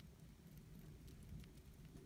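Near silence: faint low room hum with a few faint ticks.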